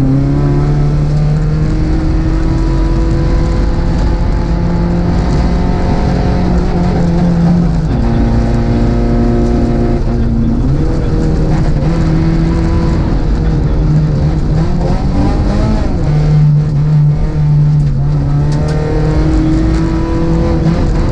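Rally car's engine, heard from inside the cabin, pulling hard along a gravel stage. Its pitch climbs and drops back repeatedly as the driver shifts gears and lifts off, over a steady rumble of tyres on gravel.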